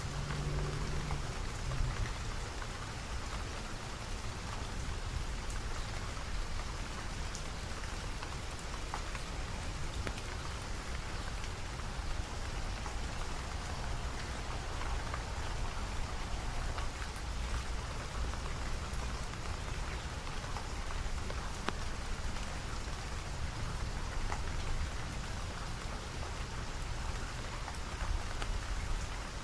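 Steady rain falling, with many small drops ticking throughout, over a low rumble.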